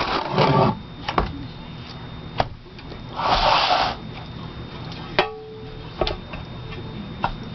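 Handling sounds of a dryer door and its rubber gasket being turned over and set down: scattered sharp knocks and clicks, with a short rustling hiss about three seconds in.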